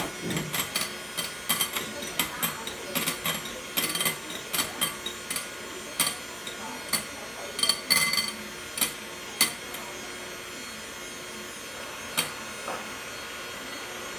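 Electric hand mixer running, its beaters whipping egg whites and sugar in a glass bowl, with frequent sharp clicks as the beaters knock against the glass. The clicks thin out in the last few seconds, and the motor cuts off suddenly at the end.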